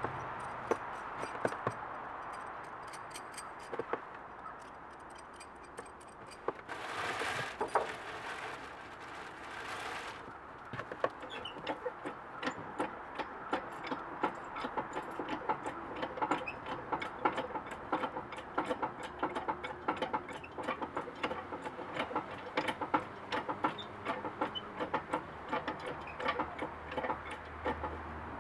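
Irregular metallic clicks and knocks, two or three a second, as a shop engine hoist is worked at its base. A few seconds of rushing noise come before them, near the start.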